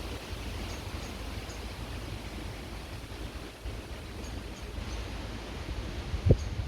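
Creek water running steadily under a low rumble of wind on the microphone, with a few faint, short high chirps. A single low thump comes near the end.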